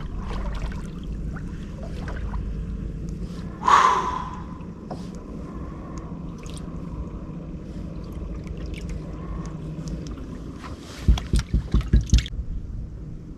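Low steady hum of a small fishing boat on the water, with one sharp loud sound about four seconds in and a quick run of about six knocks near the end.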